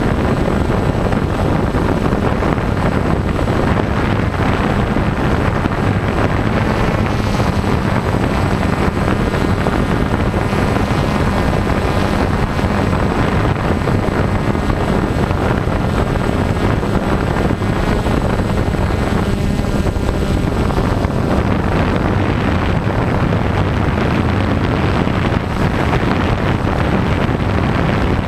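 Multirotor drone's motors and propellers running with a steady hum of several pitched tones over a hiss, carried close to the microphone, with some wind noise on the microphone.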